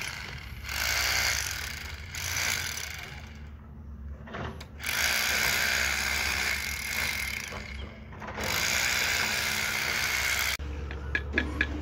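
Small handheld power tool worked against a concrete wall surface, running in stretches of a second or two with short dips between them.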